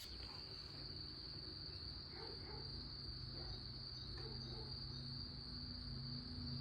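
Crickets trilling in one steady high-pitched tone, over a low steady hum.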